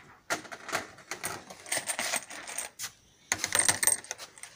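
Loose metal cartridges clinking against each other and a wooden table in several short clusters, as rounds are counted out by hand.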